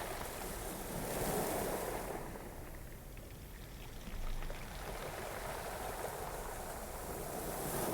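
Ocean waves washing on a shore, a soft background recording that swells and recedes, with one swell a second or so in and another about four seconds in.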